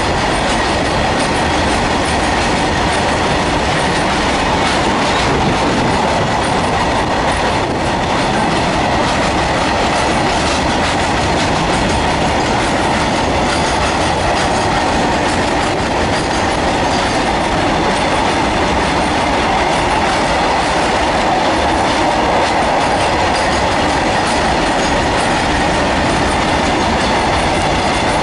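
Long freight train of open-top steel box wagons rolling past at close range: a steady rumble and clatter of wagon wheels over the rails that keeps on without a break.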